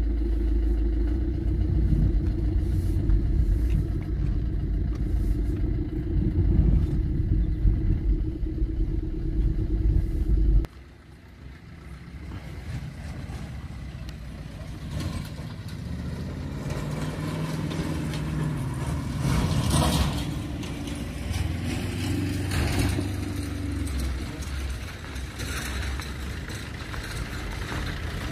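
Maruti Suzuki Swift Dzire driving, heard first from inside the cabin as a loud, steady low engine and road rumble. About ten seconds in, it cuts abruptly to the car heard from outside: a quieter engine whose pitch rises and falls as the car drives along and comes closer.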